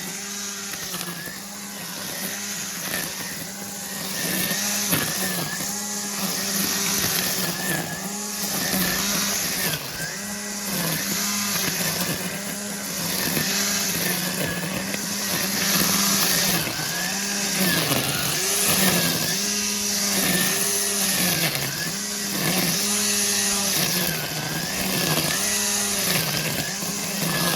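60 V cordless multi-tool's hedge trimmer attachment running, its electric motor whining steadily with the pitch dipping and recovering about once a second as it loads up while cutting.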